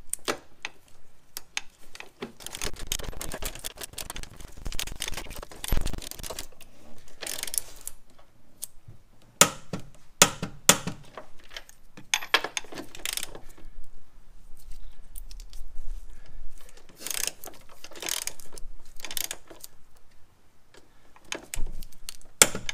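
Hand ratchet clicking in repeated bursts as nuts are run down on upper control arm mounting bolts, with short pauses between bursts and a few sharper single clicks.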